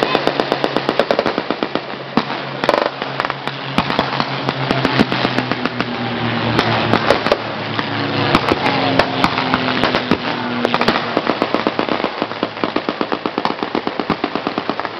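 Blank gunfire in a battle reenactment: rapid bursts of automatic fire mixed with scattered single rifle shots, many rounds a second. A steady low drone runs beneath for most of it, fading out about eleven seconds in.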